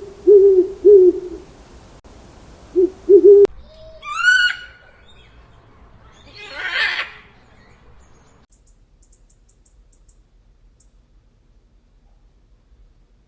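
Owl hooting in low, repeated hoots, several in short groups over the first three seconds, ending in an abrupt cut. Quieter bird calls follow: a pitched call at about four seconds, a harsh squawk at about seven seconds, then a few faint high chirps.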